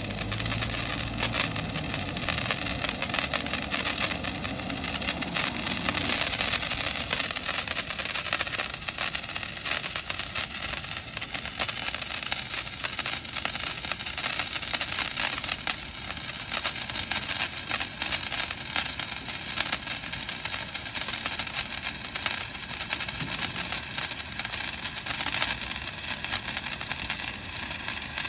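Toy firework burning, a steady hiss of spraying sparks with continuous fine crackling.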